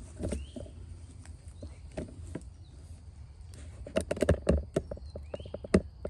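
Footsteps crunching on dry leaves and soil, a scatter of crisp crunches that bunch into a quick run about four seconds in, with one sharp crunch near the end.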